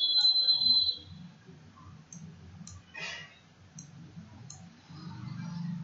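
Computer mouse clicking several times, sharp single clicks, over a faint low hum. A high steady tone, the loudest sound, stops about a second in.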